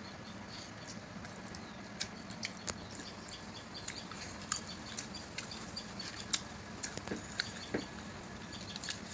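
Two people eating rice and chicken with their hands: irregular small clicks and smacks of chewing and of fingers working food on plates, over a steady low hum.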